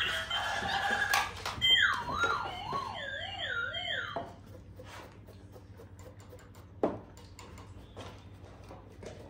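A light-up electronic toy robot plays tinny electronic music, then a warbling electronic tone falls in pitch and wobbles up and down for about two and a half seconds before cutting off. After it, only faint clicks and a single sharp knock about seven seconds in.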